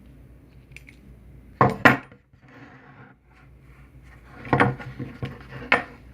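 Old metal vice grip clamp being handled, its jaws and handles giving sharp metallic clicks and clacks: a close pair about a second and a half in, then a cluster of four or five more near the end.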